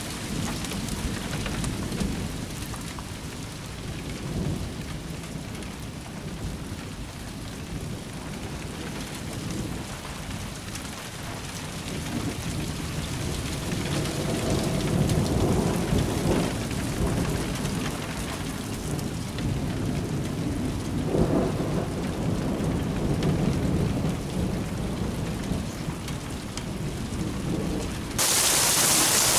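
Rolling thunder rumbling over steady rain, swelling through the second half. Near the end, much louder heavy rain suddenly takes over.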